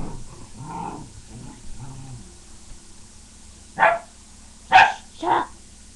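Dog growling in play for the first couple of seconds, then three sharp barks in quick succession near the end.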